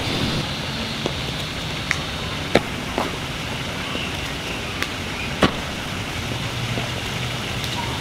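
Steady outdoor background noise like distant road traffic, with a few short sharp knocks, the loudest about two and a half and five and a half seconds in.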